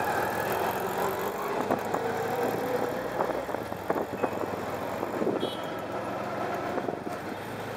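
Auto rickshaw running through city traffic, heard from inside the cab, with the engines of the surrounding traffic. A few short sharp clicks sound around the middle.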